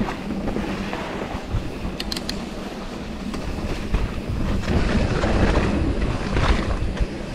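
Mountain bike riding down a wet dirt trail: uneven rolling and bumping noise from the tyres and bike, with wind buffeting the handlebar camera's microphone and a few sharp clicks about two seconds in.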